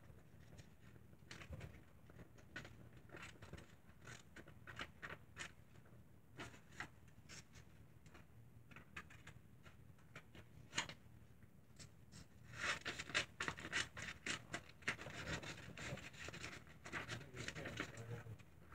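Small scissors cutting paper: scattered faint snips and clicks, coming faster and louder in the last third.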